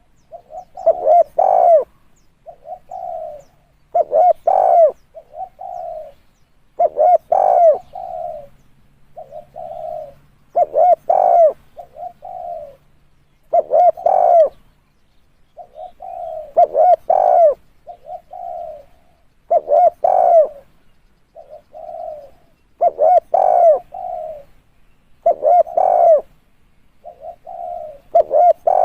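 Spotted dove cooing. The same phrase repeats about every three seconds: a softer coo, then louder coos that rise and fall in pitch.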